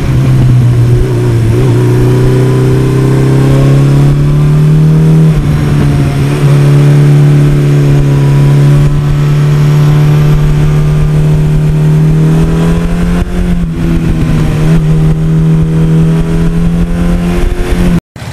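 1982 Suzuki GS1100E's air-cooled inline-four running under way. The engine note rises slowly, dips briefly about five seconds in and again around thirteen seconds, and cuts off suddenly near the end.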